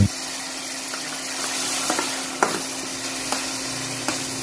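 Spices in a stainless-steel pan sizzling steadily with a little water just added, while a metal spatula stirs, scraping and clinking against the pan several times.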